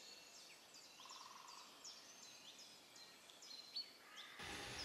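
Near silence, with faint, rapid high chirps of small birds.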